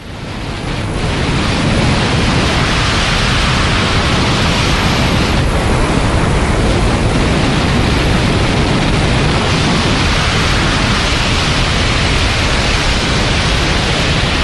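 Steady, loud rush of air roaring over the microphone of a camera flying alongside a jetpack wingsuit flyer and an airliner. It fades in over the first second or two, then holds as a dense noise with no distinct whine or beat.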